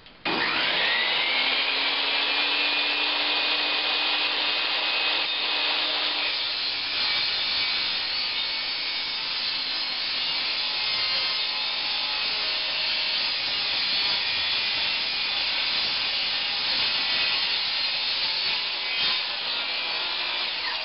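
Table saw starting up with a rising whine that levels off within about two seconds, then running steadily. From about six seconds in, the sound turns rougher as the blade cuts through 3/4-inch plywood pushed on a cross-cut sled.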